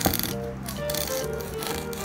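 Background music with sustained melody notes. A single sharp click of a knife blade on a wooden cutting board comes right at the start.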